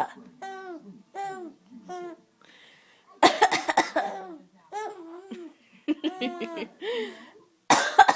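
A woman coughing in two short fits, about three seconds in and near the end, with a baby laughing in short high giggles before, between and after the coughs.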